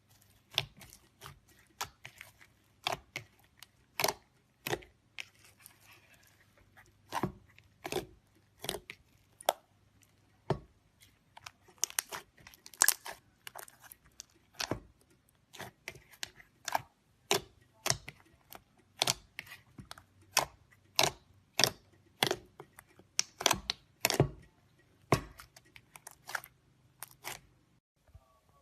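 Slime being pressed and pulled by hand, giving a series of sharp clicks and pops about one or two a second.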